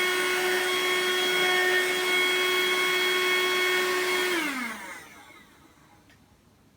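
Cordless handheld car vacuum cleaner running with its brush attachment fitted: a steady motor whine over the hiss of the airflow. About four seconds in it winds down, its pitch falling, and stops.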